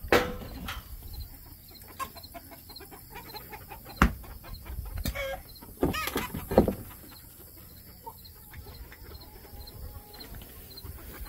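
Chickens clucking and cheeping in short scattered calls, with a few sharp knocks that are louder than the calls.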